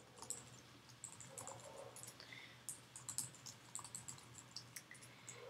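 Faint typing on a computer keyboard: an irregular run of quick key taps.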